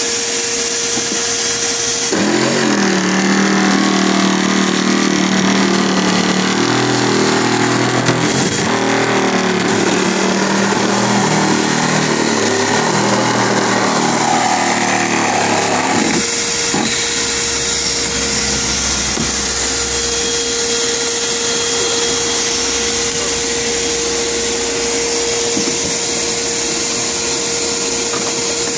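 Bee vacuum's motor running with a steady whine. From about two seconds in until about sixteen seconds a lower-pitched machine sound takes over, then the whine returns.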